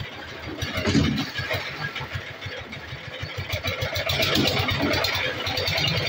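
Stationary engine driving the winch of a concrete lift hoist, running steadily with a fast regular beat while the concrete bucket is hoisted up the tower. There is a louder bump about a second in.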